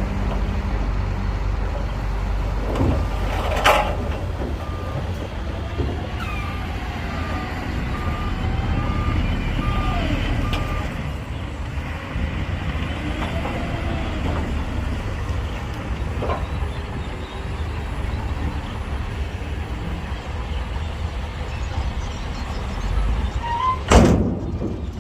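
Heavy diesel construction machinery, dump trucks and a bulldozer, running steadily with a low engine rumble. A reversing alarm beeps evenly for several seconds starting about four seconds in. A sharp bang or hiss comes just before the beeping and a louder one near the end.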